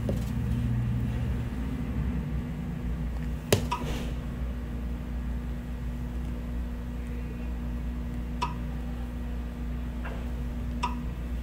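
Postal self-service kiosk touchscreen giving three short beeps as it is pressed: about three seconds in, then twice more near the end, the first the loudest. A steady low electrical hum runs underneath.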